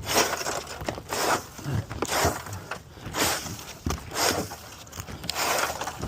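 Rough scraping strokes, about one a second, as debris is cleared by hand out of a tile roof's side wall flashing.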